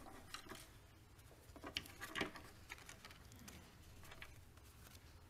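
Faint rustling and light knocks of papers and small objects being handled on a wooden lectern, loudest a little over two seconds in, over a low steady room hum.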